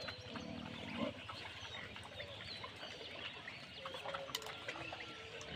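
A herd of pigs grunting, with one low grunt standing out about half a second to a second in. Small birds chirp throughout.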